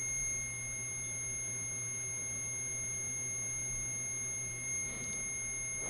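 REM pod (ghost-hunting proximity sensor) alarm sounding one steady, high-pitched electronic tone, the sign that something has come near its antenna and set it off.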